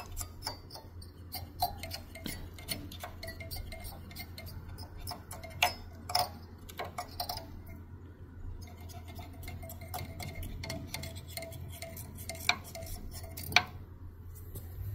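Cotton swab wet with isopropyl alcohol scrubbing the plastic blades of a Cooler Master CPU cooler fan, with irregular light clicks and scratching as it rubs and knocks against the blades. A faint steady low hum sits underneath.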